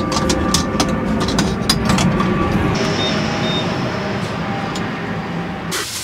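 Steady low vehicle rumble with scattered sharp clicks, then two short high beeps about halfway through. Near the very end it cuts abruptly to food sizzling in a pan.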